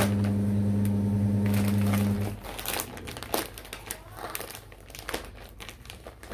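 Plastic packaging crinkling in irregular bursts as a suit in its polythene bag is handled. A loud steady low hum runs underneath at first and cuts off about two seconds in.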